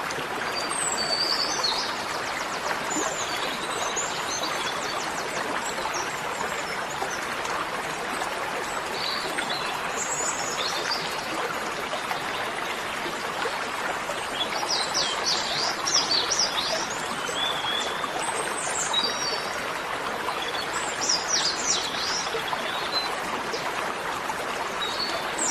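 Small birds chirping in several short clusters of quick, high notes over a steady hiss.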